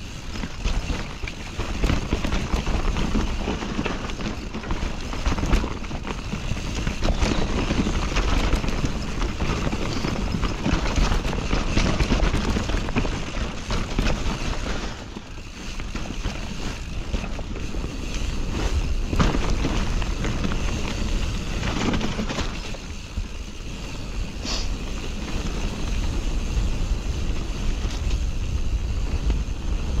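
Nukeproof Mega enduro mountain bike descending a dirt trail: tyres rolling and skidding over dirt and roots, the bike rattling with frequent knocks over bumps, under a steady rush of wind on the microphone. The noise eases briefly about halfway through.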